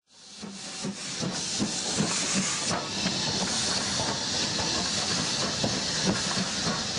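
Steam locomotive sound of an engine standing at rest: a steady hiss with soft, irregular low thumps, fading in over the first second.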